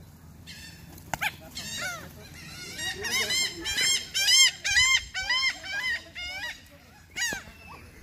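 A flock of laughing gulls calling. A few single calls come early, then a rapid run of calls follows from about three seconds in, and one more call sounds near the end.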